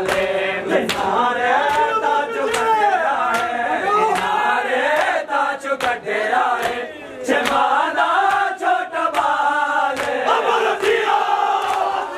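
A crowd of men chanting a mourning chant together, with the sharp slaps of hands beating on bare chests (matam) every half second to a second.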